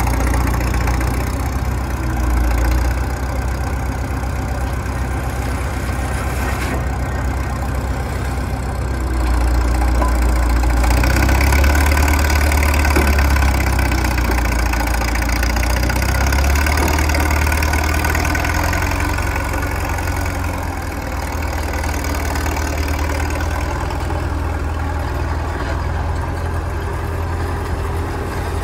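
Engine of an old Lorain crawler cable shovel running steadily while the shovel digs, pulling harder and louder for several seconds about eleven seconds in.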